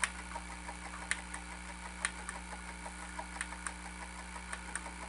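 Sony SL-S600 Betamax VCR running in slow-motion playback: a steady low hum with light ticks about once a second, often in pairs.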